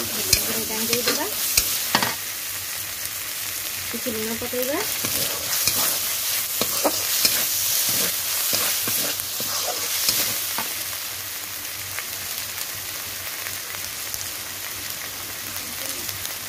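Chopped tomatoes frying in hot oil in a metal kadai, with a steady sizzle, while a metal spatula stirs and scrapes and clicks against the pan. After about ten seconds the stirring eases and the sizzle goes on.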